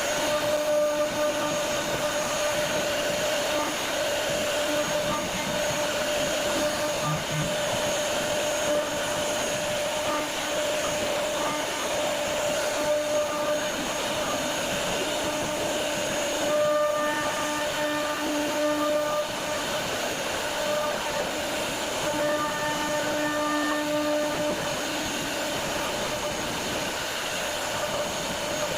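CNC router spindle running and cutting a 2.5D carving, a steady whine over a constant hiss of cutting noise. Twice, about two-thirds of the way through and again near 23 seconds, the pitch picture thickens for a couple of seconds as the load on the cut changes.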